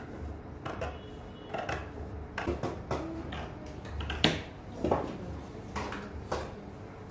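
Scissors snipping through two layers of printed dress fabric, a dozen or so separate cuts at an uneven pace, the loudest a little past the middle.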